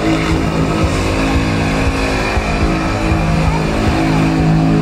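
SUV engine held at steady high revs during a burnout, tyres spinning on the pavement and throwing smoke.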